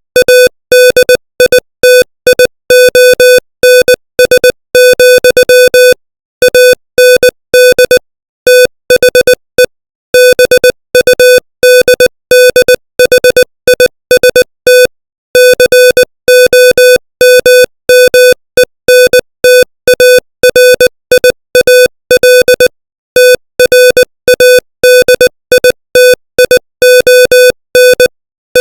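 Morse code sent at 20 words per minute: a single mid-pitched buzzy tone keyed on and off in short dits and longer dahs, with silent gaps between letters and longer gaps between words.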